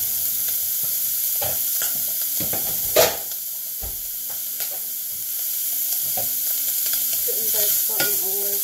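Diced bacon sizzling steadily as it fries in its own rendered fat, with no oil added, in a stainless steel saucepan, while a wooden spoon stirs and scrapes. A sharp knock stands out about three seconds in.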